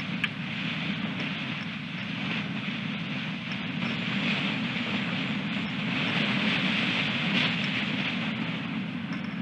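Wind blowing on an outdoor nest-camera microphone: a steady rushing that swells in a gust a little past halfway.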